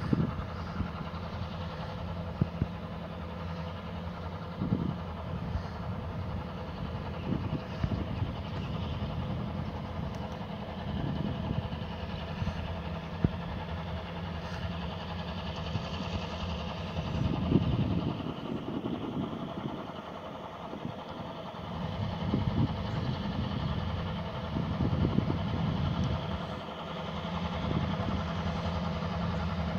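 Diesel locomotives approaching slowly, their engines running with a steady low drone, swelling into louder low rumbles a little past halfway and again later on.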